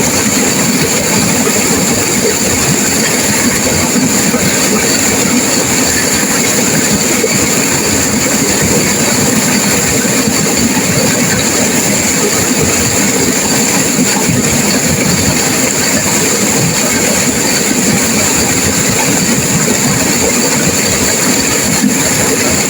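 Turbulent river water rushing and crashing, a loud, steady, unbroken rush.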